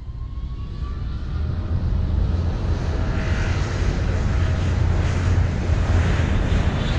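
Logo-intro sound effect: a deep, jet-like rumble with a rushing noise that swells steadily louder.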